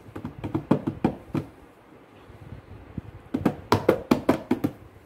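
A toddler's hands slapping the top of a cardboard formula-milk box, drummed like a tabla: quick, uneven hollow knocks for the first second and a half, a pause, then a faster run of slaps near the end.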